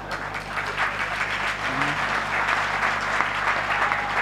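Audience applauding: the clapping swells up over about the first second and then holds steady.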